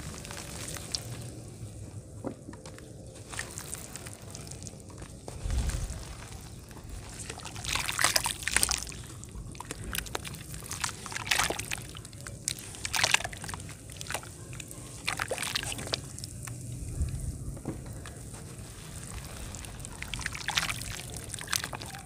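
Hands crumbling dry powdery earth into a basin of muddy water and squeezing the wet mud under the surface. Water sloshes and squelches throughout, with a splash every second or two from about eight seconds in.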